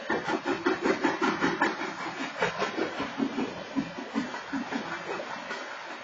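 Freight train's tank cars rolling past, their wheels clattering over the rail joints in a rapid, uneven rhythm that is loudest over the first couple of seconds and eases toward the end.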